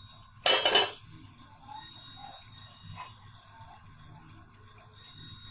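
Pan of keema-stuffed capsicums simmering in masala with a faint, steady hiss, broken by one brief loud noise about half a second in.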